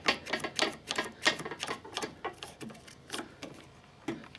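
Quick irregular metallic clicks and taps, several a second, from tools and clamps being handled on a steel loader bucket, thinning out near the end.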